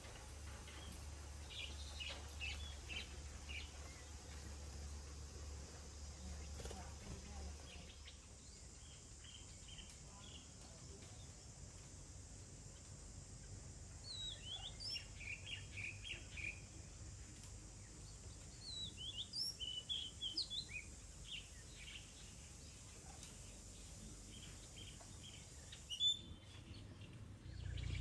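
Oriental magpie-robin singing: short runs of quick, varied whistled notes in two bursts around the middle, with fainter chirps earlier, over a low steady hum. A single sharp knock near the end.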